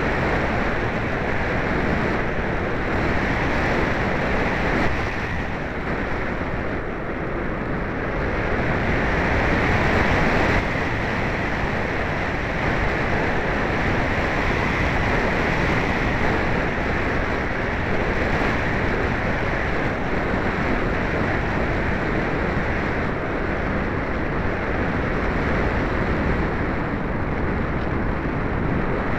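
Steady rush of air over the microphone of an onboard keychain camera carried by a ParkZone Radian Pro RC glider in flight, easing a little about five seconds in, swelling again and dropping suddenly about ten seconds in.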